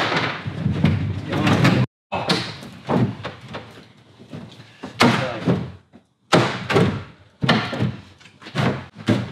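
Fibreglass engine-room module knocking and thudding against the catamaran's fibreglass hull as it is lowered and seated, a string of about a dozen irregular knocks.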